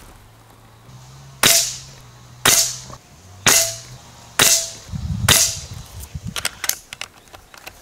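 Gare Falcon regulated PCP air rifle firing five shots, one about every second, each a sharp crack. A few light clicks follow after the last shot.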